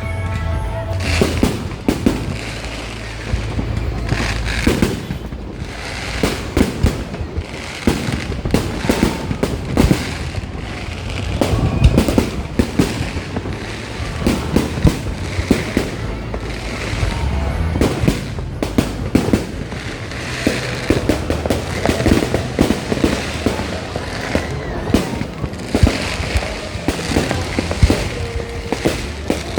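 Aerial fireworks going off in a rapid, irregular barrage of bangs and crackles, with music playing underneath.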